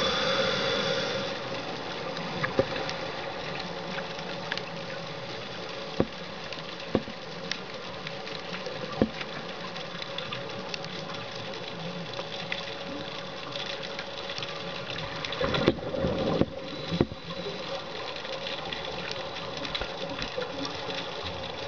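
Underwater ambience on a scuba dive: a steady watery hiss with scattered sharp clicks, and a louder rush of bubbling a little past two-thirds of the way through, from a diver's exhaled air.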